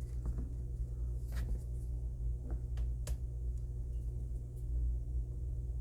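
A steady low hum, with a few faint clicks and taps of hard resin model parts being handled, about four of them spread through the middle.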